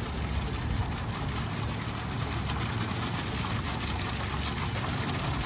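Steady splashing of a hot-spring fountain's water jet falling back into its stone basin, with a steady low rumble underneath.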